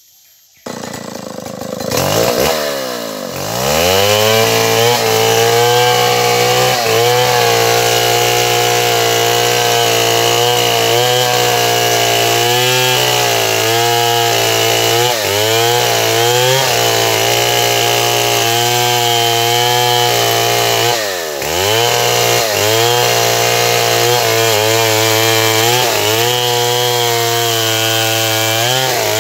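Stihl 070 two-stroke chainsaw coming in loudly about a second in and revving up, then running steadily at high revs. Its pitch dips briefly and climbs back about 21 seconds in and again near the end.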